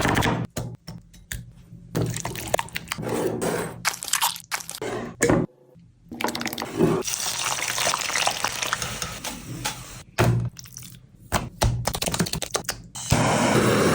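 Wet kitchen sounds of liquid dripping, pouring and squishing, in short choppy clips. A steady loud noise sets in about a second before the end.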